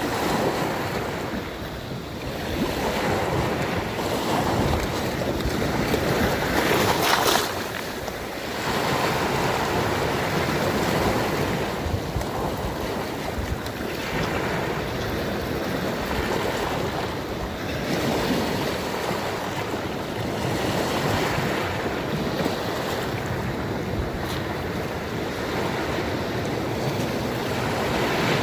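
Sea waves breaking and washing in, swelling and ebbing every few seconds, with one louder break about seven seconds in.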